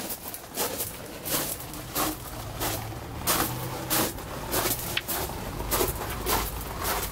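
Footsteps crunching on a gravel path at a steady walking pace, about three steps every two seconds.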